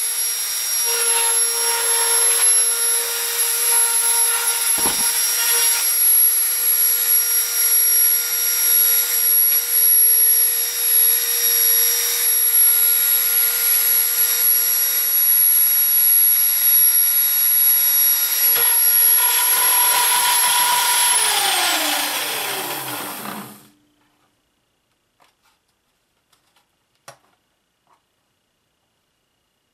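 Dremel rotary tool running at high speed, its bit grinding around in a circle on sheet metal and only engraving a groove instead of cutting through. About 21 seconds in it is switched off and its whine falls in pitch as it spins down, stopping a couple of seconds later; a few faint clicks follow.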